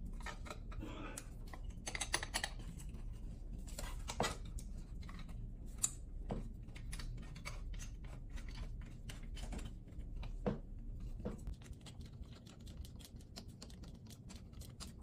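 Small clicks and ticks as a black stainless steel paper towel holder is assembled, its pole screwed onto the weighted base; the ticks come thick and fast through the second half, several a second.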